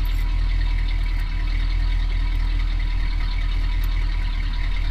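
Truck engine idling steadily with a low, even rumble.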